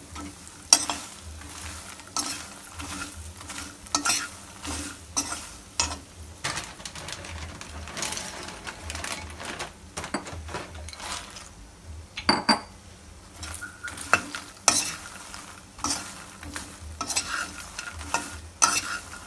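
Slotted steel spatula scraping and knocking against a kadhai as makhana (fox nuts) are stirred and turned in a little hot ghee, with a light sizzle beneath. The scrapes come one or two a second, unevenly. The nuts are being stirred continuously while they roast until crisp.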